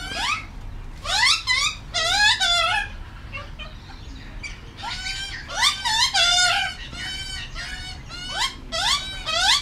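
Juvenile Australian magpie begging for food: repeated rising, wavering calls in bouts, with a lull of about two seconds partway through.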